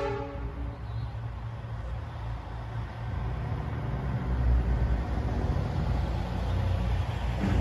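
Semi truck's diesel engine rumbling as the tractor-trailer drives slowly past, growing louder about halfway through as it comes closest. An air horn blast cuts off right at the start.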